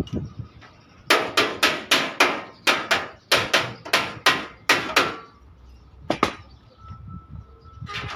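Hammer beating a truck cab's sheet-metal body panel during dent repair: a quick run of about fifteen sharp, ringing blows, roughly four a second, then a single blow about a second later.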